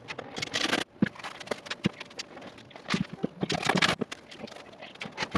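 Workshop handling noises: a string of knocks and clicks with two short scraping or rustling bursts, as melamine drawer fronts and clamps are worked into place.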